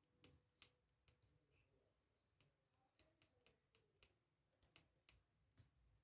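Faint, irregular clicking, a few clicks a second, from the number wheels of a Syneco luggage combination lock being turned by hand.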